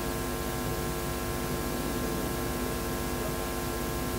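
Steady electrical mains hum and buzz, several fixed tones held unchanging over a constant hiss, from the hall's sound or recording system.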